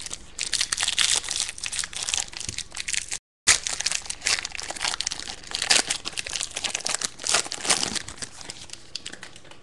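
Trading card pack wrapper being torn open and crinkled by hand, a dense run of irregular crackles, cut by a brief dropout about three seconds in.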